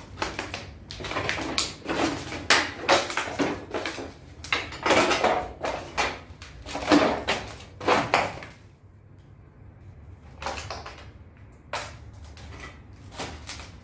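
Footsteps crunching and scraping over broken floor tiles and rubble, a busy run of clattering steps that thins out about two-thirds of the way through to a few single steps.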